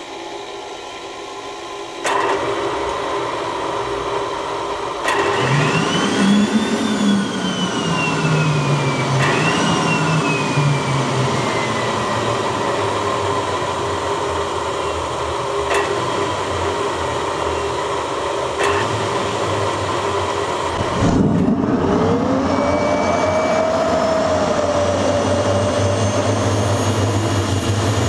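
Small turbojet engine made from a TS-21 aircraft turbostarter being started: a steady mechanical hum that steps up in loudness twice, with whining tones that rise and fall and a few sharp clicks. About 21 seconds in the sound dips briefly, then climbs with rising whistles as the engine spools up.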